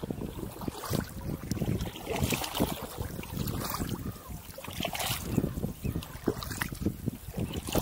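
Kayak paddle strokes: the double-bladed paddle dipping and pulling through calm water on alternate sides, with repeated splashes and drips, over a low wind rumble on the microphone.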